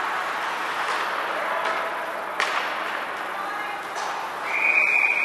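Ice hockey rink sound: a steady haze of crowd voices, one sharp crack about two and a half seconds in, then a steady high referee's whistle starting near the end, the signal that play is stopped.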